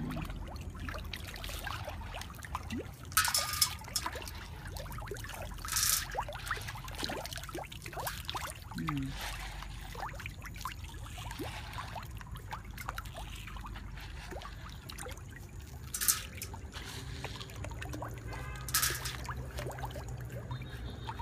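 Water trickling and lapping in a concrete fish pond as fish break the surface, with many small pops and ticks and four sharper, brief splashes spread through.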